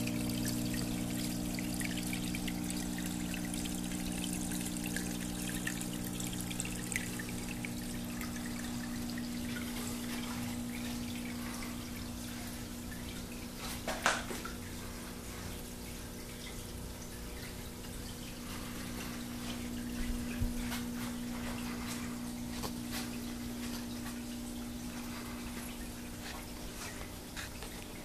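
Wall fountain running: a thin sheet of water falling down its panel and trickling into a pebble-filled basin, steady, over a constant low hum. A single sharp knock about halfway through, and the water sound eases a little lower toward the end.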